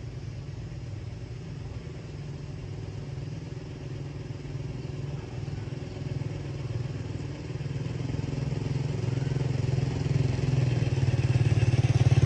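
A motor vehicle engine running, low and evenly pulsing, growing steadily louder.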